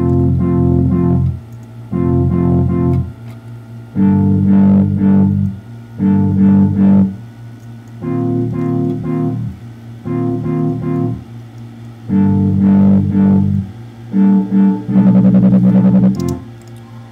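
A synthesizer bass and synth chord stabs play together in a loop. A loud chord over a low bass comes about every two seconds and is held for about a second, with a quieter bed between them. The last chord has a fast flutter running through it.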